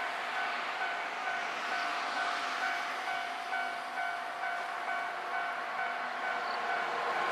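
A railway level-crossing warning bell chimes in a steady repeating beat, about two strokes a second, as a train approaches. The train itself is heard only faintly under it.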